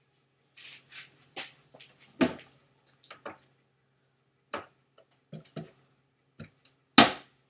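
Irregular clicks, knocks and rustles, a dozen or so at uneven intervals, with one louder clunk near the end, over a faint steady low hum; the alarm is not yet sounding.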